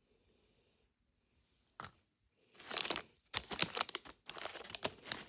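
Plastic toy packaging being torn open and crinkled, with a dense run of crackles and tearing about halfway in after a single click.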